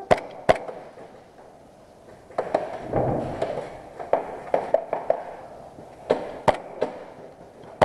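Airsoft gas pistol firing single shots: a dozen or so sharp pops at irregular spacing, some in quick pairs, with a brief scuffle of movement about three seconds in.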